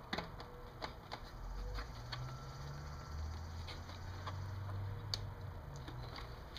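Scattered light clicks and taps of hard plastic as hands work at the motorcycle's instrument cluster housing, trying to free it from its plastic locking tabs.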